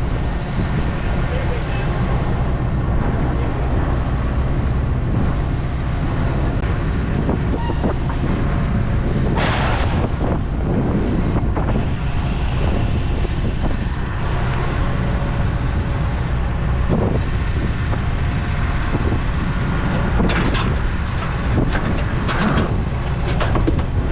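A heavy vehicle's engine idling with a steady low rumble, with a short, sharp hiss of released air about ten seconds in.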